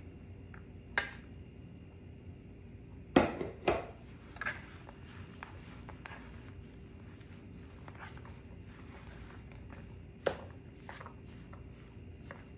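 A spoon stirring ground meat and cooked rice in a plastic mixing bowl: soft scraping and squishing, broken by a few sharp knocks of the spoon or the rice dish against the bowl, the loudest a pair about three seconds in. A faint steady hum runs underneath.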